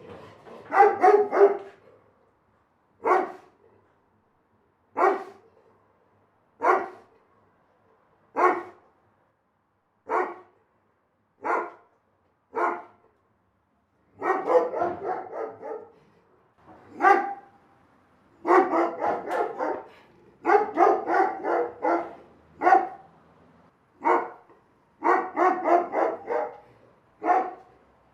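A big dog barking: single deep barks a second or two apart, then runs of quick barks in a row through the second half.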